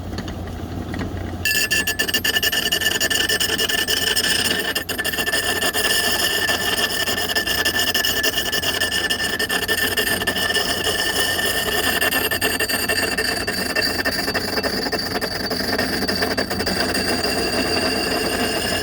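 Steel axe head ground against a motor-driven wet natural-sandstone grinding wheel: steady rasping, grinding scrape with a high ringing whine. It starts about a second and a half in over the low hum of the electric motor.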